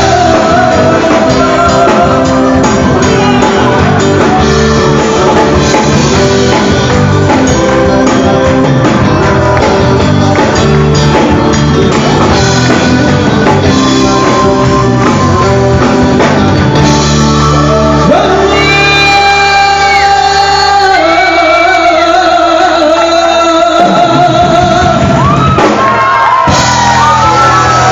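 Live rock band playing with singing and shouts, heard in a large hall. About two seconds before the end the bass and drums drop out briefly, then the full band comes back in.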